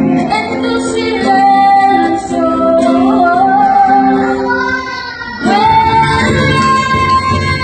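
A praise song: a female voice singing a slow melody over strummed guitar. About five seconds in, after a brief dip, a new sung phrase begins and the accompaniment fills out in the low end.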